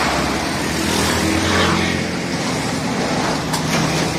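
Road vehicle going by, a steady low engine rumble with road noise that eases after about two seconds, and a couple of sharp clicks near the end.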